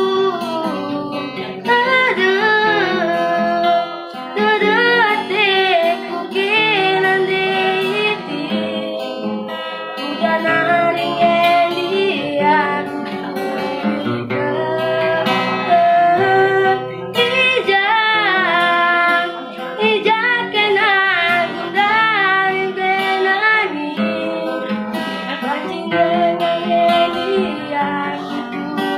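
A boy singing solo, holding long notes that waver in pitch, accompanied by an acoustic guitar played in chords.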